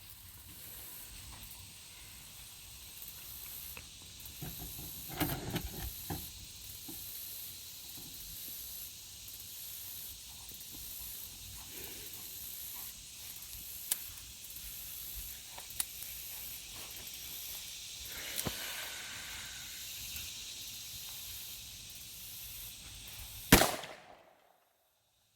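A single loud handgun shot about a second and a half before the end, fired at a padlock and striking just below it, over a steady high outdoor hiss with a few soft thumps of handling or steps before it.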